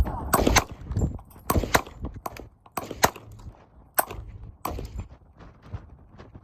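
Gunshots fired one after another at uneven intervals, several sharp cracks in the first few seconds, thinning out near the end.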